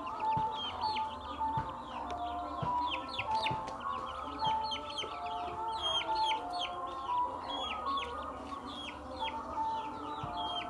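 Chicks peeping: many short, high, downward-sliding peeps, several a second, overlapping throughout. Under them runs background music with a slow melody of held notes.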